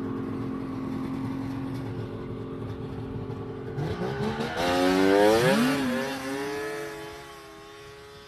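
Two-stroke engine of a vintage Polaris snowmobile idling, then revving hard about four seconds in as the throttle is floored. The engine fades as the sled pulls away.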